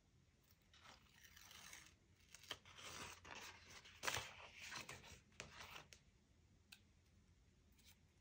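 Faint handling of journaling paper: rustling and scraping, busiest from about one to six seconds in, with a few sharp clicks, then quieting.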